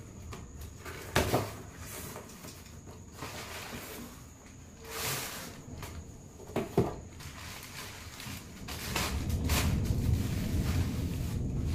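Handling of a cardboard gift box: a few sharp knocks of the box and its flaps and a short swish as a wrapped ornament is pulled out. In the last few seconds the plastic wrapping rustles and crinkles steadily as the bundle is turned over in the hands.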